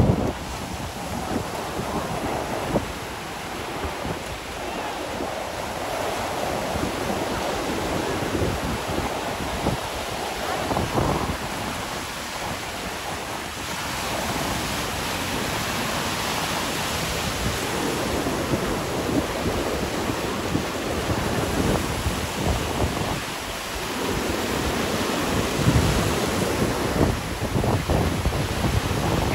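Ocean surf washing in at the shoreline, a steady surging wash, with wind buffeting the microphone in gusts.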